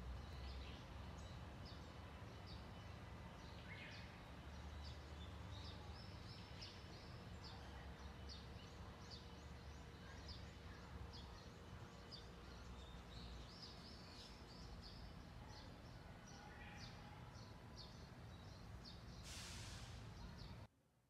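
Faint woodland ambience: small birds chirping again and again in short high notes over a low rumble. A brief hiss comes near the end, then the sound stops abruptly.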